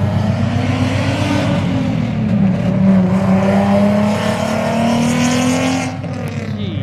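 Supercharged Scion FR-S's flat-four engine under throttle with a straight-pipe exhaust. The revs rise, dip at about a second and a half in, then climb steadily and cut off about a second before the end.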